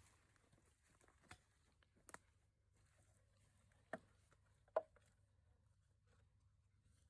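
Near silence with a faint low hum, broken by four short, faint clicks or knocks, the last one the loudest.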